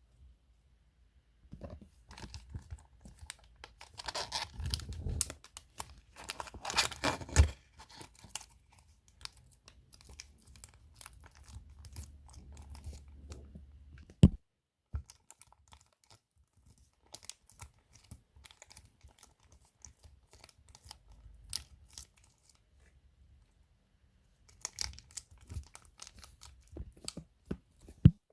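Toy packaging being torn open and crinkled by hand, in uneven bursts of rustling, with a few sharp clicks or snaps, the loudest about halfway through.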